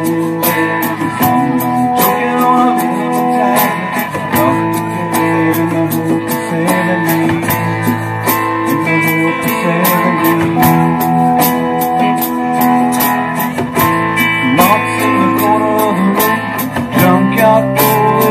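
Live band playing an instrumental passage with electric and acoustic guitars over a drum kit and congas, keeping a steady beat.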